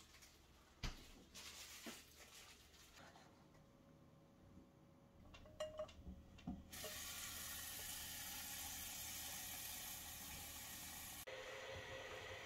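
Kitchen faucet running water into a small saucepan of eggs for about five seconds, a steady hiss that starts about halfway through. Before it come a sharp knock about a second in and a few clunks of the pan being handled; near the end the hiss changes to a different steady noise.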